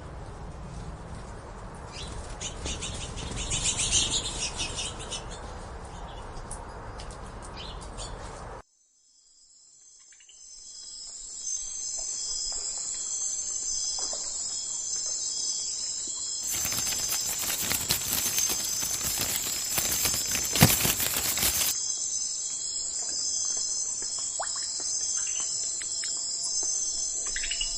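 Two outdoor clips of small birds. The first has high chirps and some wing flutter over background noise. After a short silence, the second has a steady, high-pitched insect chorus under bird calls, with a louder, rushing stretch in the middle.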